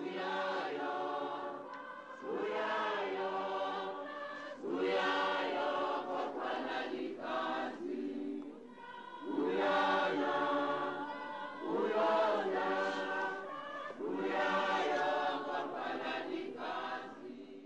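Background music: a choir of voices singing, in phrases of a few seconds each with short breaks between them.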